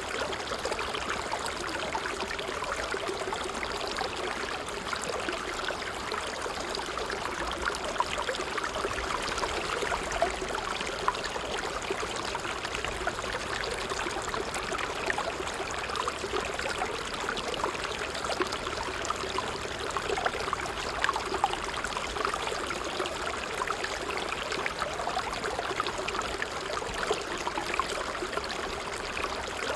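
Water trickling steadily, a continuous babble of small splashes and gurgles with an occasional louder drop.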